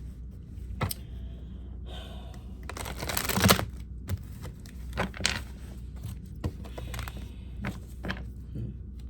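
Tarot cards being handled and shuffled: a burst of card riffling about three seconds in, then scattered light taps and flicks of the cards.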